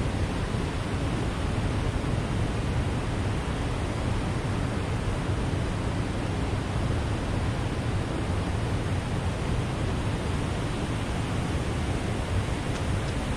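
Steady rushing of water below a dam, with a deep rumble underneath.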